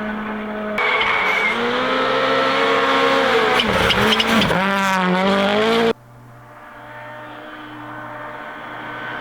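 Rally car engines at full throttle, with hard cuts between clips. In the middle a car's engine revs rise and drop sharply several times as it works through gear changes and throttle lifts. After a sudden drop in level about six seconds in, another car is heard approaching, its engine note growing steadily louder.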